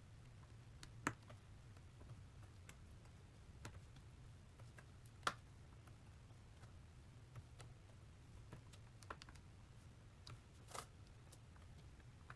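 Faint, scattered light clicks and taps of a diamond-painting drill pen setting resin drills onto the canvas, over a low steady hum. Two of the clicks, about a second in and about five seconds in, stand out from the rest.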